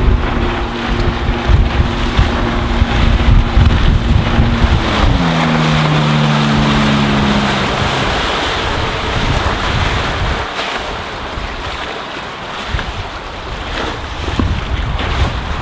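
Glastron MX175 speedboat's Volvo Penta 4.3-litre V6 sterndrive running on the water, heard over heavy wind buffeting on the microphone and splashing chop. The engine tone drops in pitch about five seconds in and fades about three seconds later, leaving wind and water noise.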